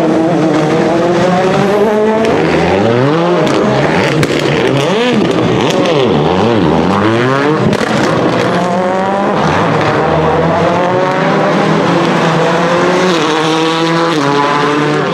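Skoda Fabia WRC rally car engine under hard acceleration, its pitch climbing and then dropping at each gear change. A few seconds in come quick swoops down and up as it lifts off and downshifts, then it pulls up through the gears again.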